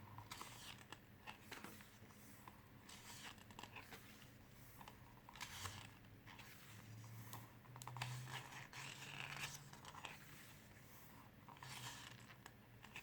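Faint paper rustling and soft handling noises as the pages of a glossy photobook are turned, in short scattered bursts over a low room hum.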